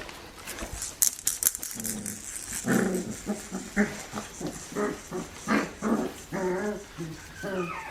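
Australian Shepherd puppies, four weeks old, making a quick run of short yips and whines, several bending in pitch, after a few sharp clicks.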